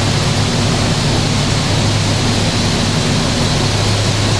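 Steady, loud din of factory machinery running on a rifle plant's shop floor, with a low hum under it.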